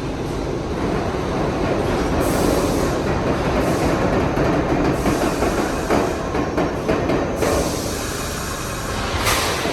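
New York City subway train running along the rails at a station platform, a steady loud rolling noise with a few short clanks about six to seven seconds in and a brief sharp burst near the end.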